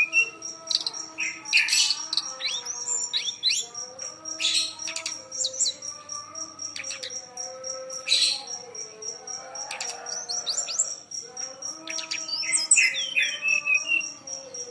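A songbird singing energetically in a run of sharp chirps and quick whistled notes, over soft background music and a steady, fast-pulsing high tone.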